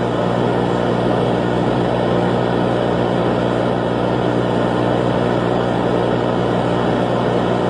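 A loud, steady engine-like drone with a low hum, unchanging throughout.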